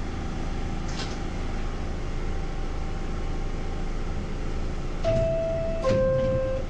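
R62A subway car standing in the station, its equipment and ventilation giving a steady hum, with a short air hiss about a second in. Near the end the two-tone door-closing chime sounds, a higher tone then a lower one, signalling the doors are about to shut.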